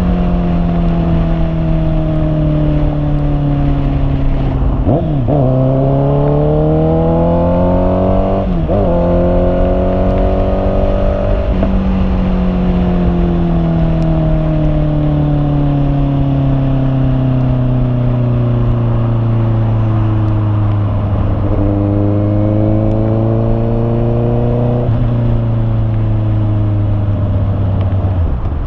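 Honda CB650R's inline four-cylinder engine running under way, its pitch slowly falling, then rising, then falling again, with several brief breaks where the pitch changes abruptly.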